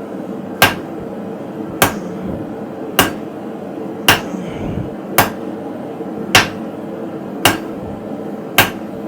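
Blacksmith's hammer striking hook stock while forging: eight evenly paced blows, about one a second, each a sharp metallic strike. A steady hum runs underneath.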